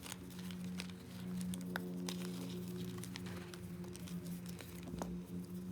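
Reformed gym chalk balls being crushed: many scattered dry crunches and crackles as the pressed chalk breaks and crumbles. A steady low hum runs underneath.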